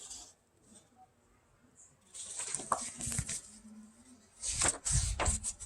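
Paper rustling as a picture book's pages are handled and turned, in two short spells after about two seconds of near quiet.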